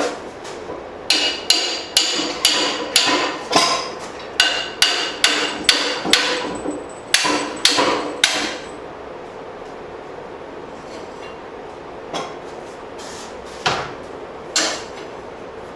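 Blacksmith's hammer striking a forged leaf-spring steel hatchet head, a quick run of about sixteen ringing blows at roughly two a second, then after a pause three more single blows. The blows are working out a slight twist in the head.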